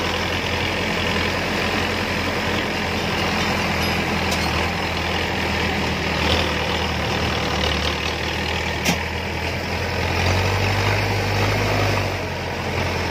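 Diesel engine of a Kubota DC-70 rice combine harvester running steadily while grain is bagged from its outlet, with a broad mechanical rush over the engine hum. The hum grows louder around ten seconds in, and there is one sharp click a little before that.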